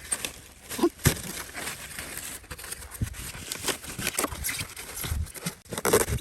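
Foam boards from roofing panels being handled and broken, giving irregular crackles, creaks and scrapes.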